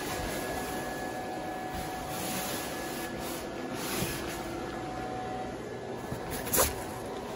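Electric blower fan of an inflatable Halloween archway running steadily, with a faint steady motor whine over the rush of air. A sharp knock comes near the end.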